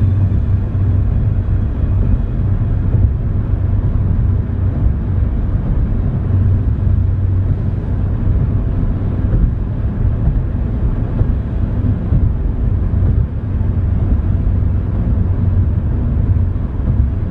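Steady low road rumble heard inside a car's cabin as it cruises at highway speed, mostly tyres on a concrete bridge deck, with engine noise.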